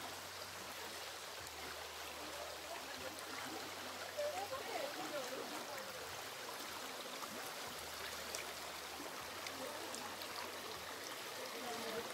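Shallow rocky stream running over stones and small riffles: a steady rush of water.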